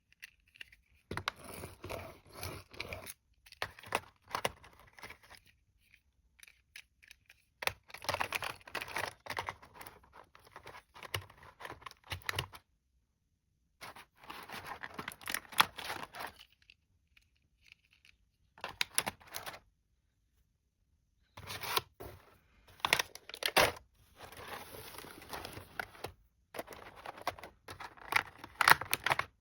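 Packaging being torn open and handled, heard as irregular bursts of tearing, crinkling and scraping separated by several short spells of silence.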